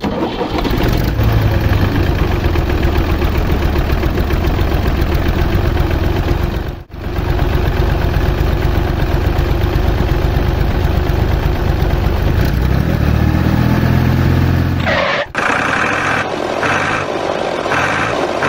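Tractor engine running with a low rumble, briefly cutting out about seven seconds in and revving up shortly before music takes over near the end.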